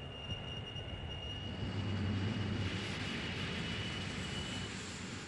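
Four-engine turboprop airliner's engines running: a steady high whine over a rushing noise and a low hum, swelling about a second and a half in and easing after. The whine stops near the end.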